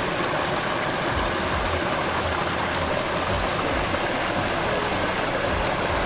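Steady rush of water from a stream cascading over rocks at the foot of a waterfall, with uneven low rumbles underneath.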